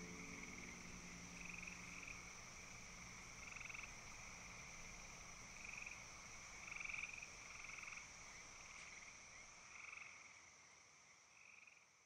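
Frogs trilling in short repeated bursts over a steady high insect-like hum, faint and fading out near the end. This is the nature-sound layer left as an instrumental music track ends.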